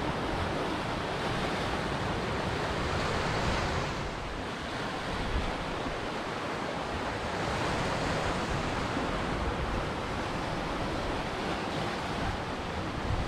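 Ocean surf: a continuous wash of breaking waves that eases about four seconds in and builds again around eight seconds.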